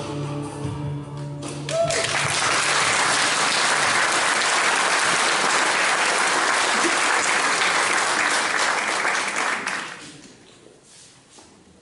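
Audience applauding, starting about two seconds in just as a piece of music finishes, holding steady for about eight seconds and dying away near the end.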